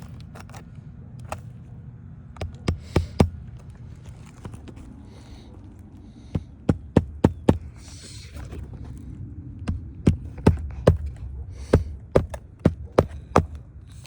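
Hammer blows driving roofing nails through an asphalt shingle: about four runs of four or five quick strikes each, with short scraping of the shingle between them.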